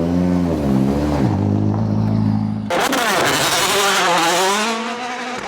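Citroen DS3 WRC rally car's turbocharged 1.6-litre four-cylinder engine revving up and down as it is driven hard. About two and a half seconds in the sound cuts abruptly to another pass, where a loud rushing noise sits over the wavering engine note.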